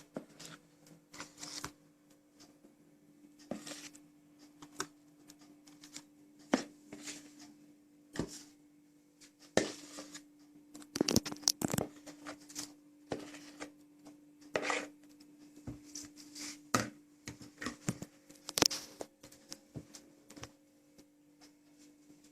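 Spoon scraping thick cake batter and knocking against bowls as the batter is portioned out, in irregular scrapes and taps, over a faint steady hum.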